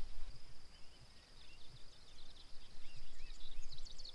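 Several birds singing in the pre-dawn chorus: scattered short chirps and rising-and-falling whistled notes, with a quick burst of high notes near the end. Underneath runs a steady high-pitched hiss, with a few soft low thumps.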